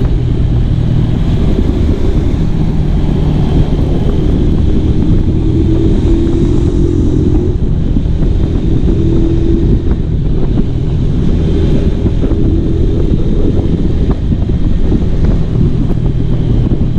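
Modified, stroked-up Honda Tiger motorcycle engine running hard while riding, its note shifting a little with the throttle, with wind rushing over the microphone.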